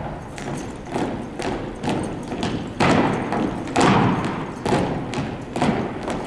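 A drill team's rifles and boots striking together on a hard gym floor: a series of sharp thuds and claps at about two a second, each echoing in the hall.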